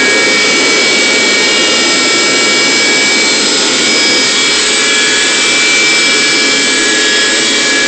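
Carpet cleaner's motor running steadily and loudly, with a high whine over its rush of air.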